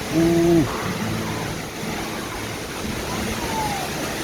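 Steady rush of the Coban Rondo waterfall and its blowing spray, with strong wind. A short hooting "ooh" from a person's voice sounds right at the start.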